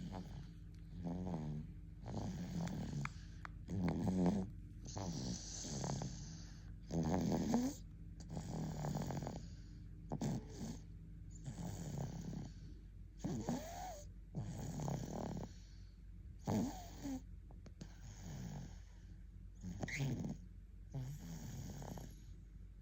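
A one-year-old snoring in sleep while sucking, with wet sucking sounds mixed into the snores. The snoring breaths come about once a second or so.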